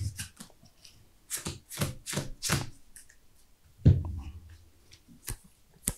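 Sleeved playing cards handled on a cloth playmat: four quick swishing card slides a little over a second in, then a heavier knock as a plastic deck box is handled, and a couple of light taps near the end.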